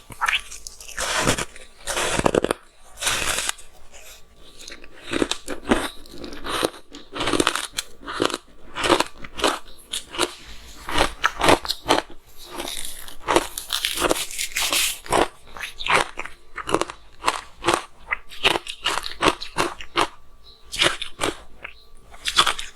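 Close-up crunching and chewing of matcha green tea ice: a fast, irregular run of sharp crunches, with a few longer grinding stretches.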